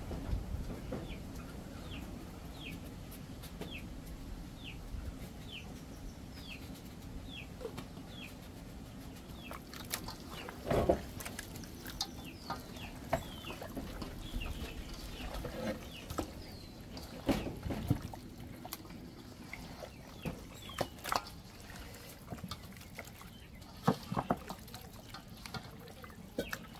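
A chick peeping over and over, short high falling chirps at about two a second, thinning out after the first several seconds. Scattered sharp clicks and knocks sound now and then, the loudest about eleven, seventeen and twenty-four seconds in.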